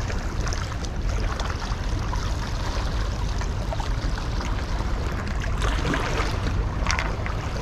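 Small waves washing and trickling over a sandstone rock ledge at the water's edge, with a steady low rumble of wind on the microphone and a brief louder splash about seven seconds in.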